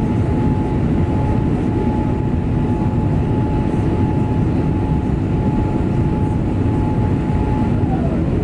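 Boeing 787-8 jet airliner in flight after takeoff: a steady, loud rumble of engines and airflow, with a thin whine that drops in pitch near the end.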